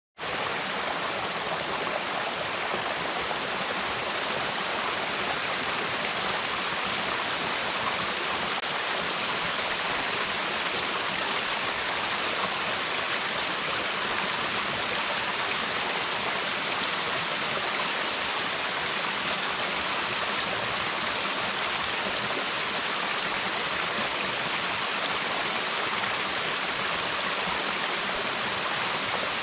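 Waterfall with steady rushing water, an even hiss that does not change.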